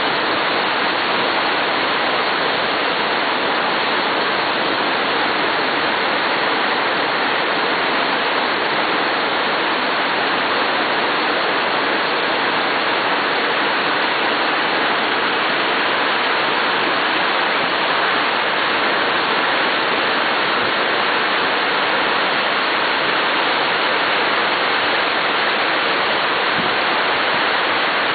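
A 60 m waterfall's water pouring down and crashing into its pool, a steady rushing noise that never lets up.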